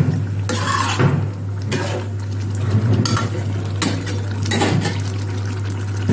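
Metal spatula scraping and knocking against a non-stick kadhai as chicken is stirred and fried on high heat, in irregular strokes that thin out near the end. A steady low hum runs underneath.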